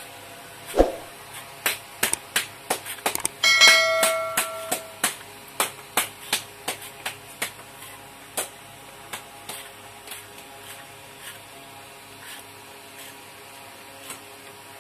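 Sharp irregular taps and clicks from a small tube cutter being pressed into a clay slab and knocked against it. They come thick and fast for a few seconds, then thin out to occasional taps. A low thump comes about a second in, and a brief ringing note sounds about three and a half seconds in.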